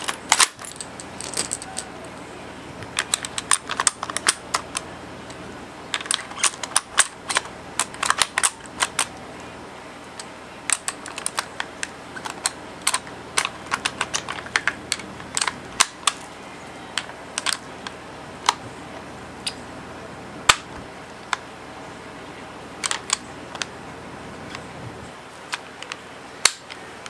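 Sharp metallic clicks and clatter in irregular clusters as brass shell casings are pushed one by one into the open action and internal magazine of a Marushin K98 gas airsoft rifle.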